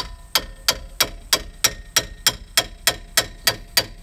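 Short-handled sledgehammer repeatedly striking the front brake caliper assembly of a 2015 Chevy Silverado, metal on metal. The blows come in a quick, even series of about three a second, each with a short ring. The hammering is to free the caliper and bracket from the hub, where the brake pads are stuck on.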